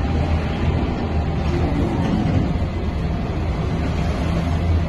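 Steady low rumble of a Trolza-5275.06 Optima trolleybus in motion, heard from inside the passenger cabin.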